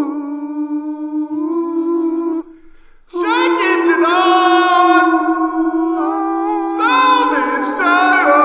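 Music outro of wordless layered vocal notes, held long with some bends and wobble in pitch. The sound drops out briefly about two and a half seconds in, then comes back fuller.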